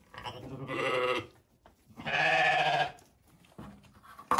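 Sheep in a barn pen bleating twice, each call about a second long with a wavering pitch, followed by a short sharp knock near the end.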